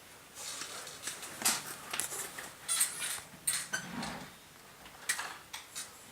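A run of irregular light clatters, knocks and rustles.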